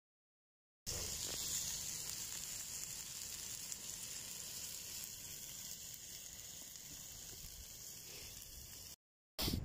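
Wood pigeon breasts frying in a small steel pan set on campfire embers: a steady sizzle that starts abruptly about a second in, eases a little, and cuts off shortly before the end.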